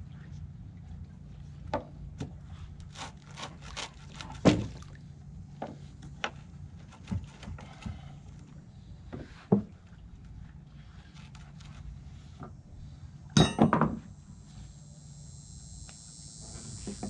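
Irregular knocks and clinks as an old wooden dock beam is worked loose and handled, with a louder flurry of knocks about thirteen seconds in. A steady low hum runs underneath, and a steady high buzz begins about fourteen seconds in.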